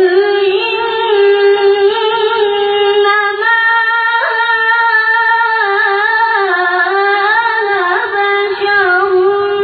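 A child reciting the Quran in melodic tilawah style: a single high voice holds long notes, adorned with small ornamental turns, and its pitch dips around the middle and rises again near the end.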